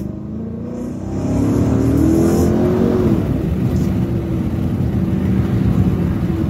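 Car engine and exhaust under hard acceleration. From about a second in, the engine note rises for about two seconds, drops briefly, then holds steady under rumble and wind noise from the open window.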